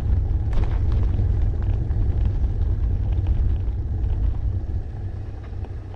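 Steady low rumble of road and wind noise while riding a touring bicycle along a highway, easing off near the end.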